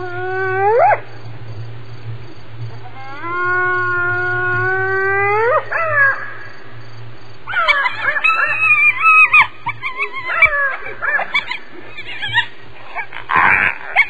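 Spotted hyena whooping: two long calls, each held low and then rising sharply at the end. These are followed by a run of short, higher-pitched choppy calls over several seconds.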